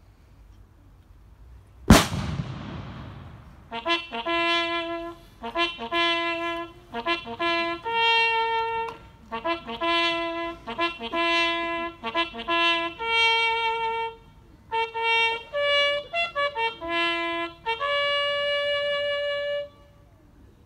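A single loud bang with a rumbling tail about two seconds in, then a solo bugle call played on a brass instrument: a series of held notes in short phrases that stops shortly before the end.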